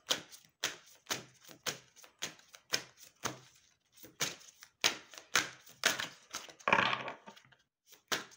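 A deck of oracle cards shuffled overhand by hand, packets of cards slapping from one hand into the other about twice a second, with one longer rasp about two-thirds of the way through.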